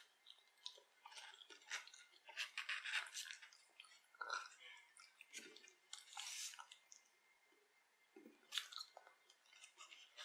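Close-miked chewing of creamy fettuccine carbonara: soft, wet mouth smacks in irregular short bursts.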